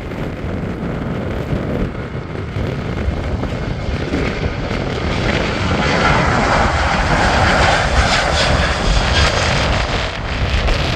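Jet engines of a Boeing 737 airliner at takeoff thrust, running as a steady roar through the takeoff roll and lift-off. The sound grows louder over the first half as the aircraft approaches.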